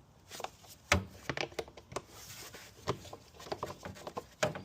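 Handling noise: a run of clicks, knocks and rubbing, with a sharp knock about a second in and another near the end.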